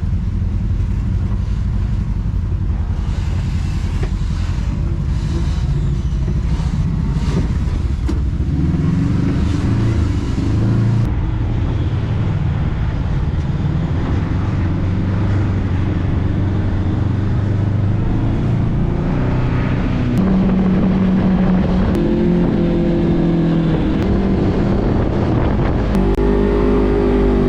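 Kawasaki KRX 1000 side-by-side's parallel-twin engine working at low speed over rock ledges, its pitch stepping up and down as the throttle is opened and eased.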